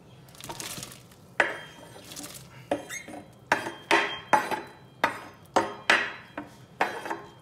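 Chopped cauliflower pushed off a wooden cutting board with a knife into a pot of water: a short scraping rush about half a second in, then a run of a dozen or so sharp knocks and taps of knife and board against the pot rim, coming quickest in the middle.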